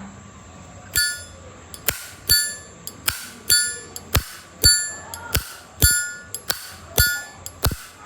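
The lid of a 2003 silver-plated Zippo lighter, freshly adjusted, is flipped open with the ringing Zippo 'clink' and snapped shut, over and over, about once every second or so.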